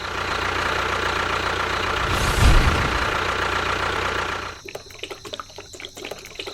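A small motor running steadily with a thin whine, cutting out about four and a half seconds in and followed by a few light clicks and rattles.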